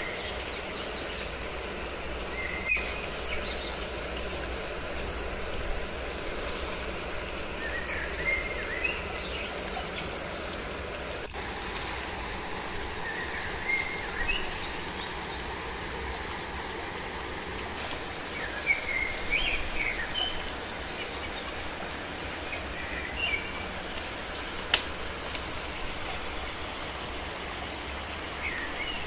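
Forest ambience: birds chirping every few seconds over a steady high-pitched drone, with a few sharp snaps of dry brush being pulled and broken.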